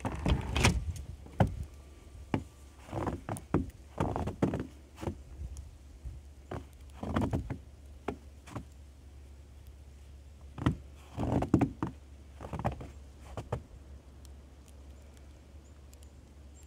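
Scattered short knocks and scuffs close to the microphone, coming in irregular clusters, over a faint steady low hum.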